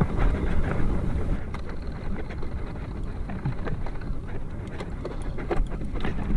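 Mountain bike rolling down a rough dirt trail: a steady low rumble of wind on the microphone and tyres on the ground, with frequent quick rattles and clacks from the bike jolting over bumps.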